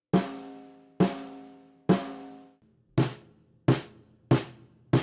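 Seven single snare drum hits struck with a drumstick. The first three, about a second apart, ring on with a clear pitch, and the four that follow are shorter and drier.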